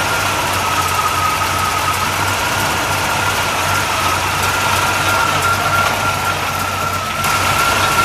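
Chevrolet 327 small-block V8 in a 1957 Chevrolet station wagon idling steadily, with a thin, steady high whine over the engine note.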